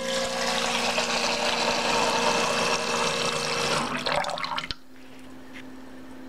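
Magnetic pump of a liquid-filling machine running with a steady whine while a stream of clear liquid splashes into a measuring jug. The pump and the pour stop together just under four seconds in, as the metered dose is complete, followed by a few drips and a low steady hum.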